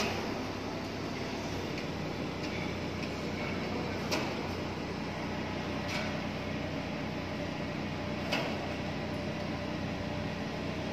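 Mobile crane's diesel engine running steadily during a truss lift, with three short sharp knocks, about 4, 6 and 8 seconds in.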